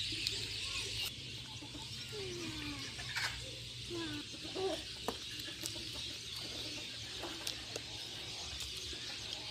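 Domestic chickens clucking now and then, a few short scattered calls over a steady faint high hiss.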